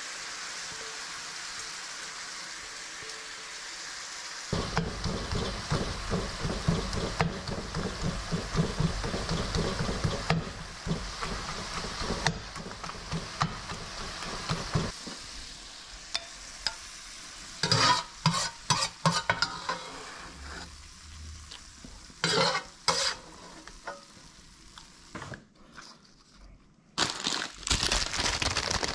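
Chicken sizzling in a hot sauce in a cast-iron skillet, then a metal spatula chopping and scraping against the pan in quick repeated strokes. After that come a few louder separate scrapes, and near the end a paper bread bag crinkles.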